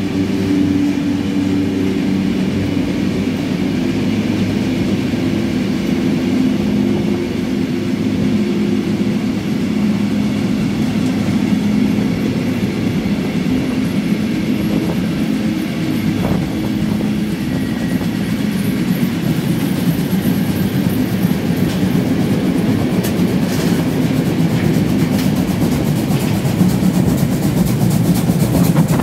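Steam trains 50 3648 and 35 1097 working up a steep incline side by side: a steady rumble of locomotive and wheels on rail with the rush of steam, heard through an open carriage window. It grows a little louder near the end as a locomotive comes alongside.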